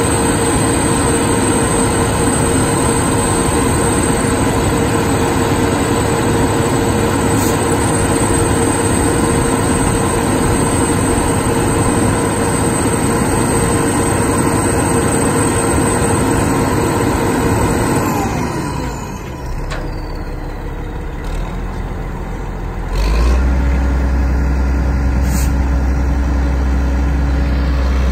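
Terex T560 truck crane's diesel engine running at high revs with a steady whine over it. About eighteen seconds in the pitch falls away as the revs drop, and a few seconds later a deep steady engine hum sets in until the end.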